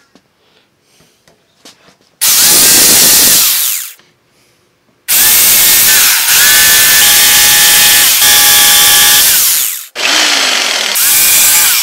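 Corded jigsaw cutting through a wooden sewing machine table top. The saw starts about two seconds in and runs briefly, pauses, then makes a long cut with a steady motor whine. It stops for a moment near the end and starts again.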